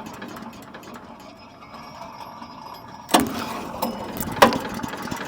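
Bilt Hard wood chipper's 224cc gas engine being pull-started: quiet at first, then two sharp yanks on the recoil starter about three and four and a half seconds in, after which the engine is running.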